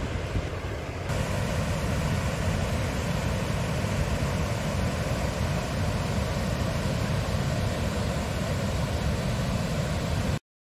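River water spilling over a weir, a steady, low, even rushing; the sound cuts out for a moment near the end.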